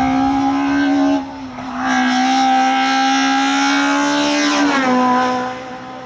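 Peugeot 106 S16 rally car's high-revving 1.6-litre 16-valve four-cylinder engine at full throttle as it drives past. The note dips briefly about a second in, holds steady again, then falls in pitch and fades as the car goes by.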